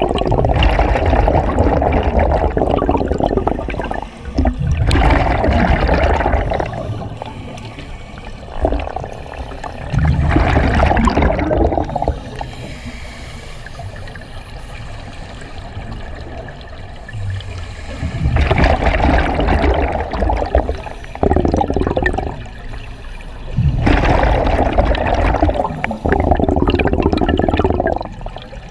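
Scuba diver's exhaled breath bubbling out of the regulator, heard underwater: bursts of rushing bubbles, each one to four seconds long, about six in all, with a quieter stretch around the middle.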